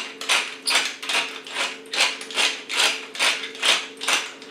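Hand-twisted stainless-steel pepper mill grinding peppercorns in quick back-and-forth turns, a rasping crunch about twice a second. A faint steady hum runs underneath.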